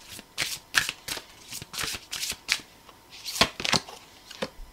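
A deck of tarot cards being shuffled and handled by hand: a run of short, irregular flicks and slaps, with a denser burst about three and a half seconds in.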